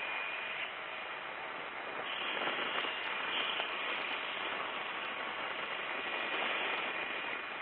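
Steady rushing noise of a hovering helicopter heard through the aircrew intercom, with a faint high whine at times.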